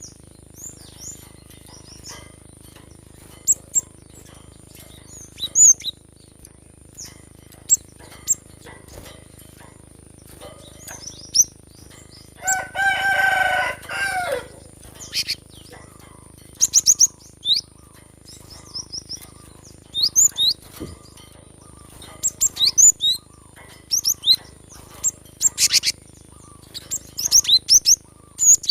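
Cinereous tit (gelatik batu) calling: short, sharp, high chirps in quick clusters scattered throughout. A rooster crows once about halfway through, for about two seconds, falling at the end.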